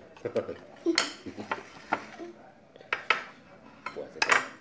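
Cutlery clinking and scraping against a dinner plate of rice and fried fish, five or so sharp separate clinks.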